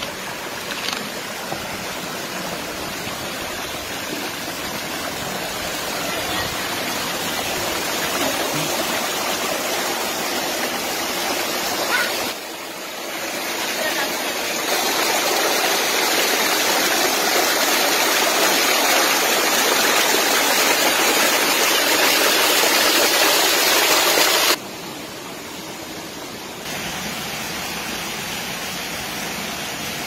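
Rushing water of a rocky forest stream tumbling over boulders, a steady hiss. It dips sharply about twelve seconds in, comes back louder, and drops suddenly again near the end.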